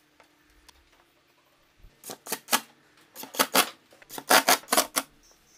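Cordless impact driver driving screws through an aluminium T-track into plywood, fired in short trigger bursts: three runs of quick, sharp bursts spread over the last few seconds.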